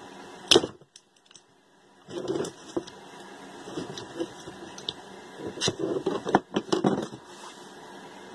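A flat screwdriver prying and scraping at the plastic impeller of a hot-water circulator pump, working it off the shaft to get at the failed mechanical seal. Irregular sharp clicks and scrapes: one loud click about half a second in, then scraping, and a quick run of clicks a bit past halfway.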